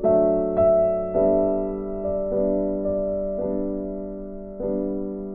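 Background piano music: single notes and chords struck at a slow pace, each ringing out and fading before the next.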